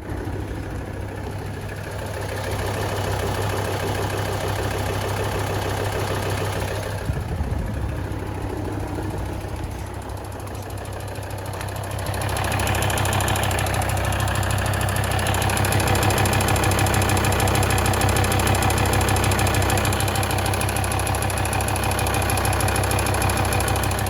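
Volvo D5244T12 five-cylinder turbodiesel idling cold, with a rhythmic ticking clatter over the even running, somewhat louder from about twelve seconds in. The clatter comes only on starts below about +5 °C and fades once the engine is warm. The owner places it toward the back of the engine, heard at the front wheel arches and near the drive belt.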